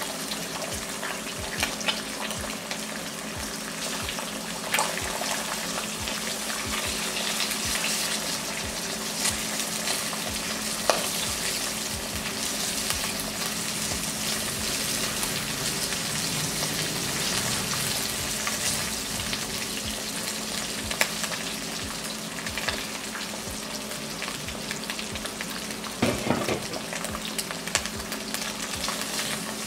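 Eggs sizzling and crackling steadily as they fry in butter in a non-stick wok. A slotted spatula taps and scrapes against the pan now and then, most sharply about 26 seconds in.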